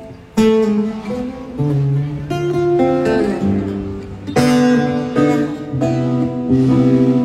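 Guitar playing through the stage PA during a band soundcheck, mixing held chords and single notes, with loud strummed chords struck about half a second in and again about four seconds in.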